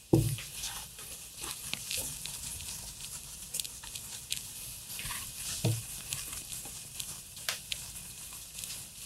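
A cloth wiping marker ink off a glass lightboard: a steady rubbing hiss broken by irregular short scrubbing strokes. There is a thump right at the start and another about halfway through.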